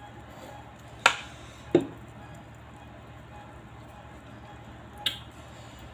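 Three short, sharp crackles from a crisp kerupuk cracker being handled as chili sauce is squeezed onto it: one about a second in, another just after, and a third near the end, over a steady low hum.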